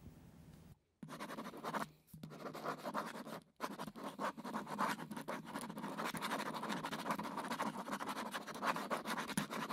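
Felt-tip ink pen scratching on paper as lines are inked, in quick continuous strokes that start about a second in, with two brief pauses where the pen lifts.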